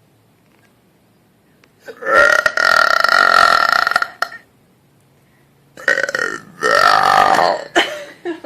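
A woman burping loudly: one long burp of about two seconds, then, after a short pause, two more burps in quick succession.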